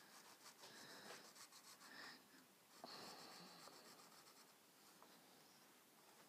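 Faint scratching of a pencil traced in strokes around a paper template on a stretched canvas, busiest in the first four seconds and fainter after.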